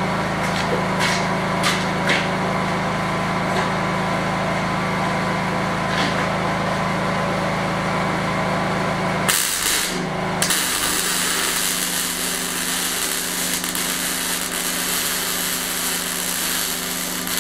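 A steady machine hum with a few light clanks. About nine seconds in, electric arc welding starts: a steady crackling hiss that runs on to the end as a steel crosspiece is welded onto the smoker stand's frame.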